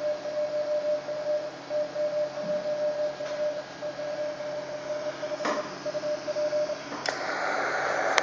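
A Morse code CW sidetone: one steady mid-pitched tone keyed on and off in dots and dashes, sending a CQ call from a ham radio transceiver. About seven seconds in, the keying stops with a click and a steady receiver hiss comes up as the radio returns to receive.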